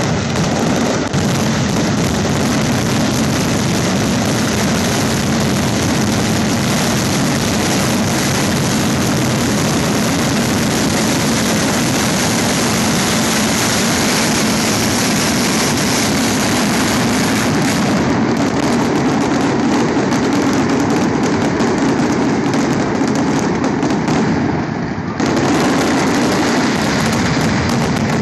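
Fireworks going off in a dense, continuous barrage of bangs and crackles. It dips briefly a few seconds before the end, then starts again.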